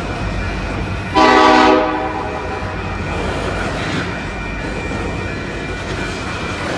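Union Pacific freight train crawling past, its cars rolling on the rails with a steady low rumble. About a second in, the locomotive's horn gives one short chord blast that fades out within half a second.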